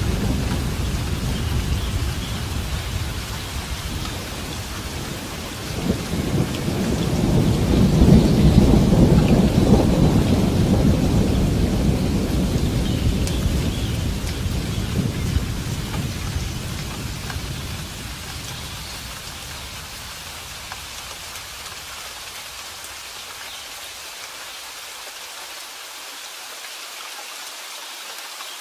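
Steady rain with a long roll of thunder. The rumble swells about six seconds in and dies away by the middle, leaving only the hiss of rain falling on surfaces.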